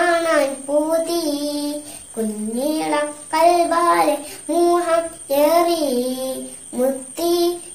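A young girl singing solo, unaccompanied, a Malayalam devotional song in praise of the Prophet Muhammad, in sung phrases with short breaths between them.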